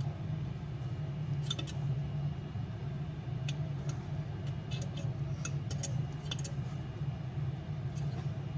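Scattered light metallic clicks and taps of small parts and tools being handled, over a steady low hum.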